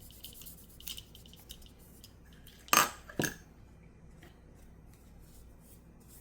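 Small steel pistol parts being handled: light scratches and clicks, then two sharp metal clinks about half a second apart near the middle.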